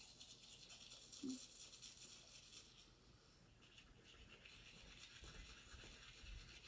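Faint, quick scrubbing of a child's manual toothbrush on teeth, with a brief lull about three seconds in.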